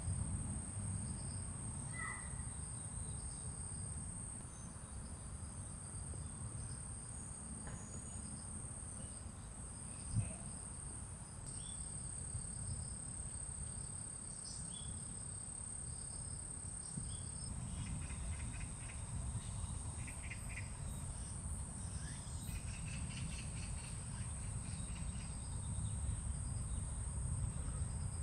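Insects trilling in a steady, continuous high-pitched tone, with a few scattered bird chirps over a low rumble, and a single sharp knock about ten seconds in.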